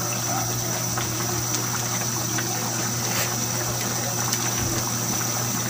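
Chicken liver, gizzards and cauliflower simmering in broth in a wok on the stove: a steady watery hiss over a constant low hum.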